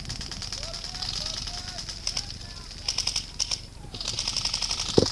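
Airsoft guns firing on full auto: rapid clattering bursts about a second in, around three seconds in and again near the end, with a single loud knock about five seconds in.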